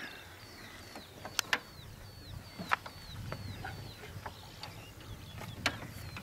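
A small bird calling a short, high, hooked chirp over and over, a few times a second, fading out about two-thirds of the way through. A few sharp clicks and knocks come from hands working on a plastic-and-metal model jet.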